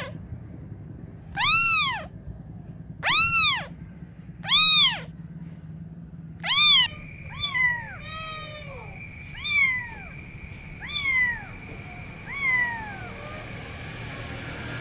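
Young kitten mewing repeatedly, calling for its mother. There are four loud, arched mews about a second and a half apart, then from about halfway softer mews that fall in pitch, with a steady high whine behind them.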